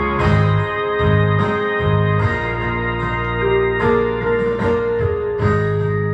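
Electronic keyboard playing a gospel song's introduction: held, organ-like chords over a bass line that pulses about twice a second.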